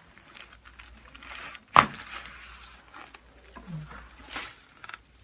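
Rustling and crinkling as a patient turns over on a chiropractic treatment table, with one sharp knock a little under two seconds in that is the loudest sound.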